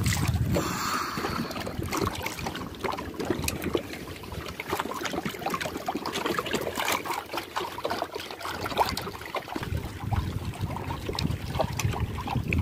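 Water trickling and dripping off a wet fishing long line as it is pulled hand over hand over the side of a wooden boat, with many small irregular drips and taps.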